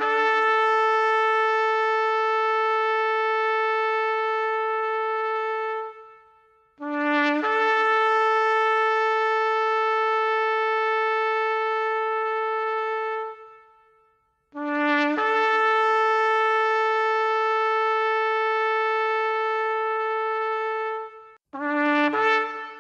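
Shofar blowing three long blasts. Each opens on a brief low note, jumps up to a higher held note and then tails off. Near the end a series of short, quick broken notes begins.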